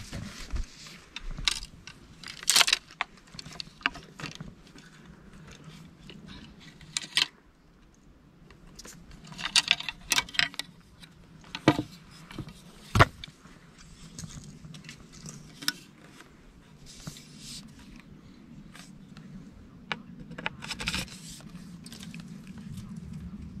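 Irregular handling noises: scattered sharp clicks, scrapes and short rustles, with a faint low hum that grows louder near the end.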